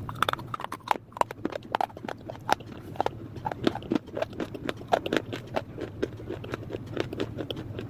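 Dry clay being bitten and chewed close up: an irregular string of sharp crunching snaps and crackles, several a second.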